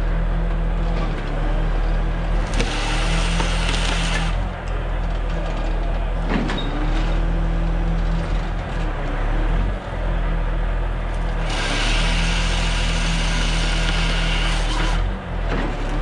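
Truck engine running steadily to drive the crane's hydraulics, while the crane-mounted cutting head's chainsaw cuts through a pine trunk in two spells: a short one about two and a half seconds in and a longer one of about three and a half seconds starting about eleven seconds in.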